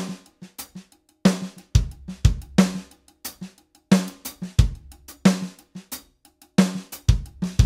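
A simple drum kit groove played back from a recorded multitrack: kick drum, snare on the backbeat about every second and a third, and light hi-hat ticks between, at a steady moderate tempo. This is the original drum recording, before its kick and snare are replaced.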